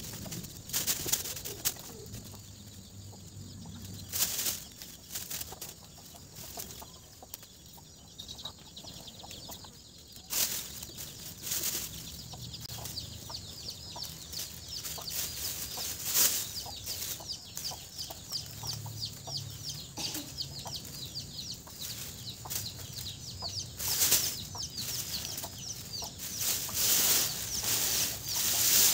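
Dry lemongrass stalks rustling and crackling as they are handled and stuffed into a plastic bag, in irregular strokes. From about halfway on, a fast, high chirping runs behind them.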